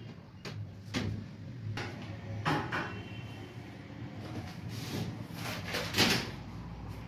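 Several short knocks and clatters, the loudest about six seconds in, as a split AC indoor unit's metal mounting plate is handled and positioned against the wall, over a low steady hum.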